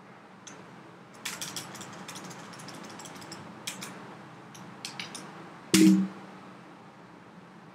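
Computer keyboard keys clicking in two short runs of typing, with one louder knock about six seconds in.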